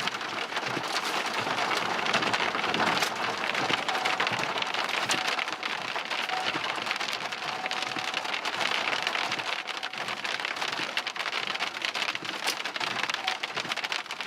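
Rain and hail coming down hard, a dense steady patter of countless sharp ticks from hailstones striking.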